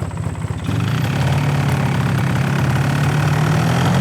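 Truck engine pulling away: a steady low engine note that grows louder about a second in and then rises slowly in pitch as the vehicle speeds up.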